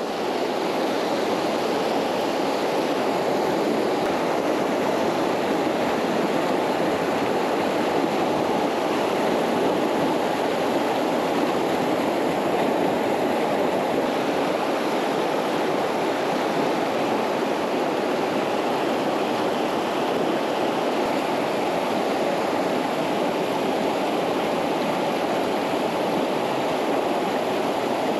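Fast-flowing river water rushing steadily over rocks, a constant even roar.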